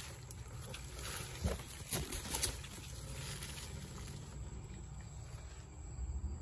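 Rustling plant foliage and a few light knocks and clicks as a rusty metal garden stake is handled among tomato vines, over a steady low rumble.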